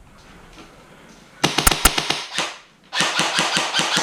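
Airsoft guns firing on full auto: a rapid burst of clicking shots about a second and a half in, then a longer burst of about a second near the end.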